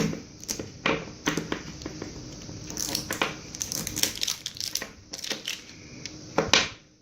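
Plastic packaging crinkling and crackling as it is handled and pulled open, in a run of irregular sharp crackles that is busiest midway through.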